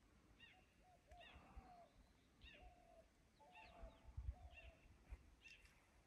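Faint birdsong from the forest edge: short, repeated high chirps answered by lower, slightly rising whistled notes, with a few low thumps on the microphone near the middle.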